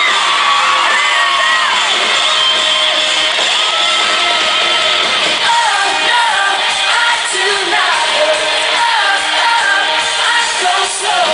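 Female pop-rock lead singer singing live with a full band over a concert PA, recorded from within the audience.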